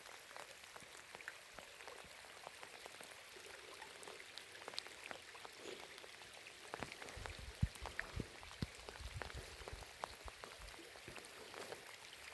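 Light rain falling, a steady patter of many small scattered drips. A few heavier low thuds, footsteps, come around the middle.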